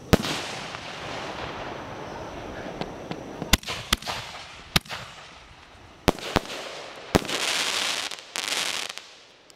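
Aerial fireworks bursting: a sharp bang at the start with a long hissing tail, then about six more bangs over the next few seconds. Near the end comes a dense crackle lasting about two seconds, from a burst of glittering crackling stars.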